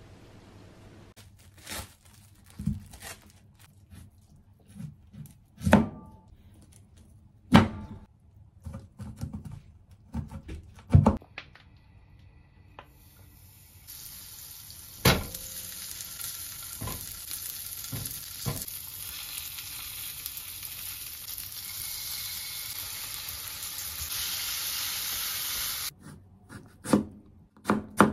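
Scattered knocks and clicks of kitchen handling, then oil and spices sizzling steadily in a nonstick frying pan for about twelve seconds. Near the end, a knife starts chopping carrot on a wooden cutting board in quick strokes.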